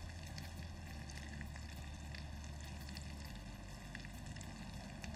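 Rice frying in oil and butter in a pan, a low steady sizzle with faint scattered ticks as it is stirred with a spatula to toast the grains.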